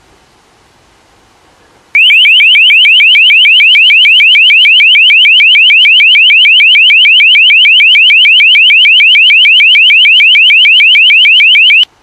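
LRAD (Long Range Acoustic Device) bird-deterrent tone: a very loud, rapidly repeating rising chirp, about five or six sweeps a second, that starts abruptly about two seconds in and cuts off suddenly near the end. Before it there is only a faint wind-like rustle.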